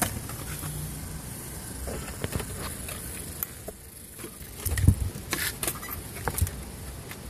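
Handling noise as an RC buggy and its batteries are moved around in a car's carpeted cargo area: scattered clicks and knocks, with a cluster of louder knocks about five seconds in and another near the end, over a steady low background hum.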